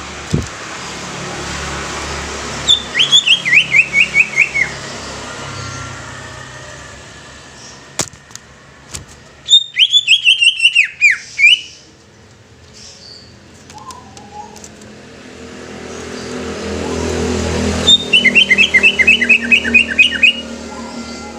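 Cucak ijo (green leafbird) song: three bursts of quick, falling, whistled notes, each burst about two seconds long with roughly four notes a second. A low background rumble swells between the second and third bursts.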